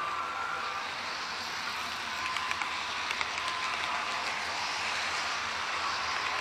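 HO-scale model train running on track, heard from a camera car riding in the train: a steady hiss of metal wheels rolling on the rails with scattered light clicks, and a faint steady whine.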